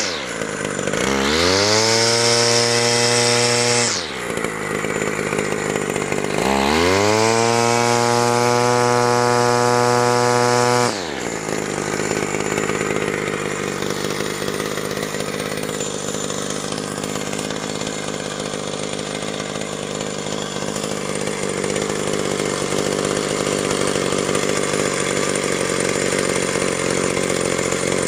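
A 1978 Stihl FS-150 brushcutter's small two-stroke petrol engine is test-run after a clutch rebuild. It is revved up to full speed twice, for about three and four seconds, dropping back in between. It then idles steadily for the rest of the time.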